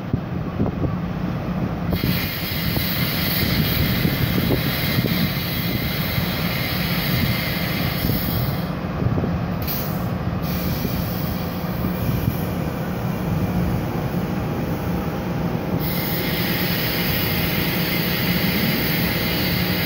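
A Tri-Rail diesel locomotive and its passenger coaches pulling slowly into a station, the engine running steadily. Over it is a high-pitched squeal and hiss from the wheels that starts a couple of seconds in, comes and goes, and returns strongly near the end.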